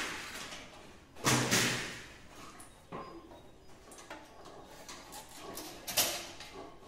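Sheet metal and a circle cutting machine clanking: a loud metallic rattle about a second in, lighter knocks after it, and a sharp clank near the end.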